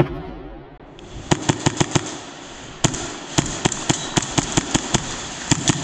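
Airsoft guns firing single shots in quick strings, several sharp cracks a second, after a brief lull in the first second.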